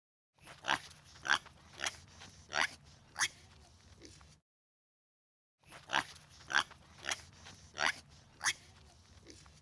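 An animal's short, sharp calls, about five in quick succession; the same run of calls then plays again after a second's silence.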